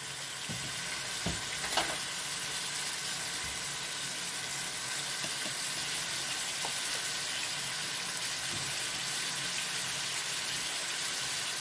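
Minced meat and chopped onions frying in oil in a pan, a steady sizzling hiss, with a couple of faint clicks in the first two seconds.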